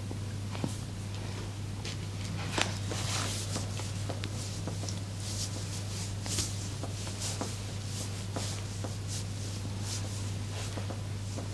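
Hands rubbing and patting on skin and cloth during a massage: soft, irregular rustles and light taps, over a steady low hum.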